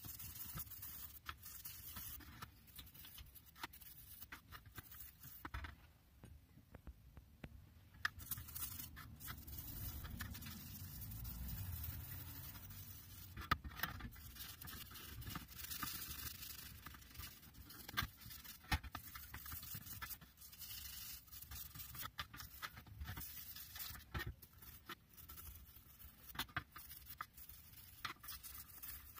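Toothbrush scrubbing a Grey of Canada 6-inch offset adjustable spanner in a tin of liquid: faint, irregular scratchy bristle strokes with occasional sharp clicks.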